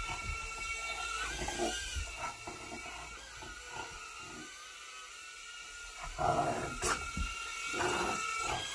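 Mini indoor quadcopter drone hovering, its tiny propeller motors making a steady high-pitched whine that wavers slightly in pitch. Louder noises join from about six seconds in, with a sharp click near seven seconds.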